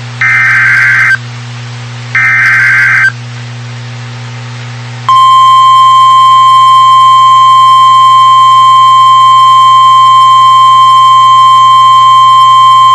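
Emergency Alert System SAME header data bursts, two harsh buzzing chirps about a second long each and a second apart, then about five seconds in the steady NOAA Weather Radio 1050 Hz warning alarm tone starts and holds, announcing a new warning.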